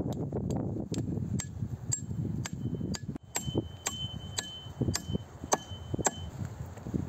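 An axe, used as a hammer, knocks on the wood of a pine log bench, about two blows a second. A faint metallic ring runs through the later blows. Wind rumbles on the microphone under the first few blows.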